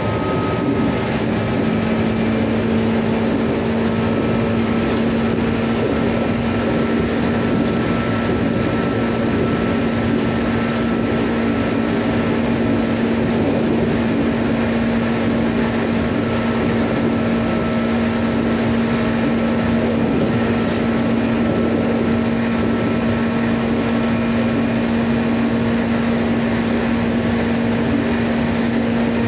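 JR 211-series electric multiple unit running at speed: a steady traction-motor tone holding one pitch over the rumble of wheels on rail.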